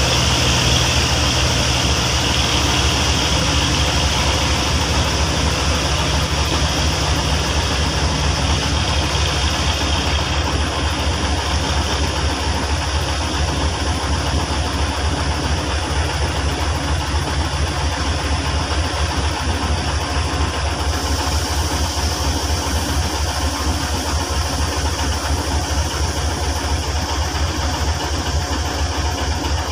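Heavy engine idling steadily, with an even low throb that neither builds nor fades.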